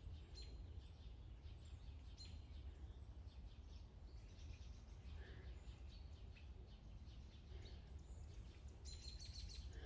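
Near silence: faint woodland ambience under a low, steady rumble, with small birds chirping faintly now and then.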